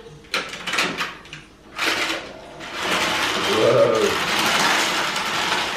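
A small plastic toy car clattering down a plastic spiral ramp toy in a steady rattle, after a few clicks of hard plastic being handled. A child's short vocal sound comes partway through.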